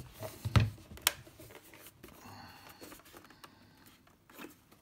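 Plastic knocks and clicks from handling a portable radio's case while fitting lithium-ion cells into its battery compartment. A thump about half a second in and a sharp click about a second in are followed by fainter ticks and rustling.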